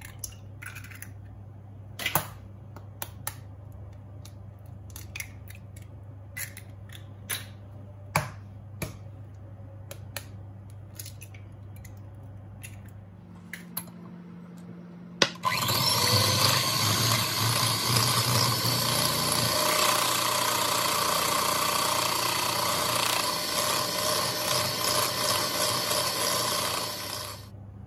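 Eggs cracked one after another into a glass bowl, a scatter of sharp clicks and taps of shell on glass. About halfway in, an electric hand mixer switches on with a click and beats the raw eggs at a steady speed for about twelve seconds, then stops shortly before the end.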